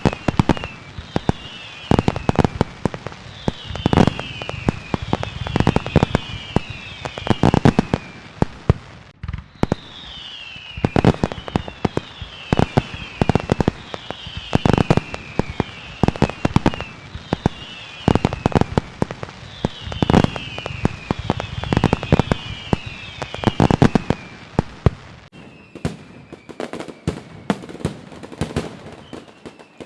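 Fireworks display: a steady barrage of sharp bangs from bursting shells, overlaid with repeated falling whistles about a second long. Near the end the whistles stop and the bangs thin out to scattered cracks.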